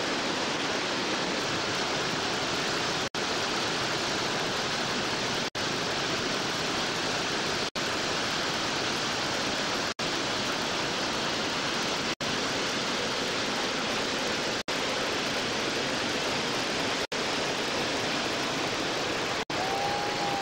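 Steady roar of whitewater rushing through a river rapid, broken by very brief dropouts about every two and a half seconds.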